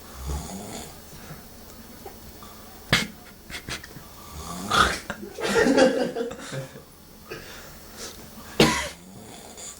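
A man snoring in his sleep, with one long loud snore from about four and a half to six and a half seconds in. Short sharp clicks come at about three seconds and again near the end.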